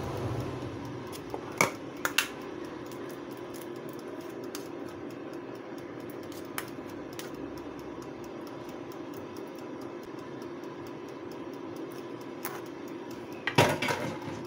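A metal spoon clicking and scraping as margarine is scooped from a plastic tub and dropped onto chicken wings in an air fryer basket: two sharp clicks about a second and a half in and a cluster of clicks and knocks near the end, over a steady low hum.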